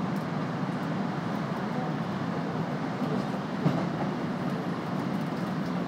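Steady running noise inside a Midosuji Line train under way between stations: an even, low rumble of wheels and traction equipment, with one faint click about three and a half seconds in.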